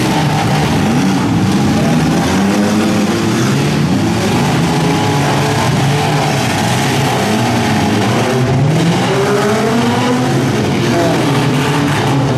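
Several six-cylinder demolition derby cars' engines running and revving at once, their pitches overlapping and rising and falling constantly.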